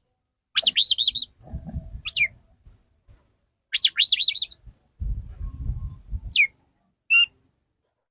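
Male Oriental magpie-robin singing its courting song to a female: short phrases of quick warbling whistles and falling slurs, about five phrases with pauses between them. A low rumbling noise sounds twice between the phrases.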